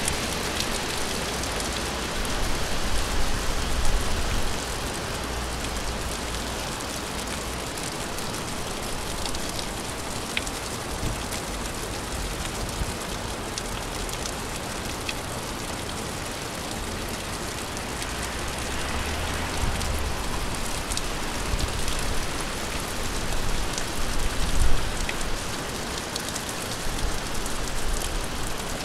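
Steady gentle rain falling, an even hiss with scattered louder drips. A low rumble swells under it a few times.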